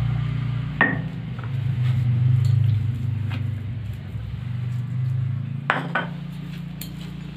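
Knocks and clinks of a stone grinding roller and a ceramic plate against a flat stone grinding slab as ground peanut paste is scraped off by hand: one sharp clink about a second in, and two more close together near the end. A steady low hum runs underneath.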